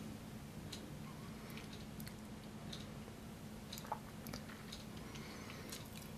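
Faint, scattered crinkles and ticks of paper sheets being handled and laid out, over a faint low hum.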